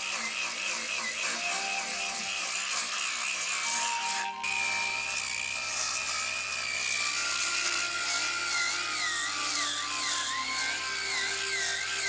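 Music with long held notes, over the high, wavering whine of a corded power tool working oak.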